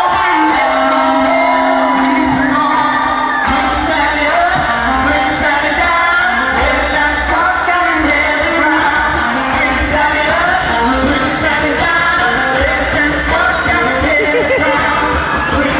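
Live concert music with a singer, recorded from the audience with poor sound. A beat with a steady kick and hi-hat comes in about three and a half seconds in.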